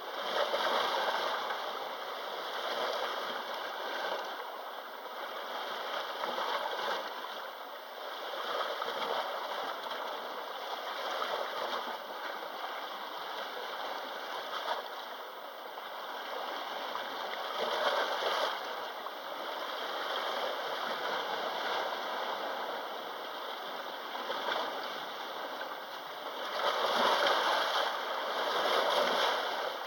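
Sea waves washing against the shore, a steady rush that swells and ebbs every few seconds, with bigger surges about a second in, midway and twice near the end.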